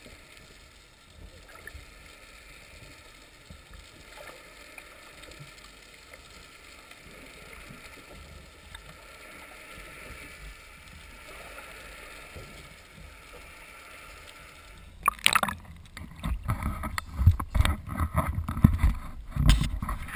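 Faint, muffled underwater hiss picked up by a submerged camera. About fifteen seconds in, loud splashes, knocks and handling thumps as the camera is hauled out of the water onto the boat.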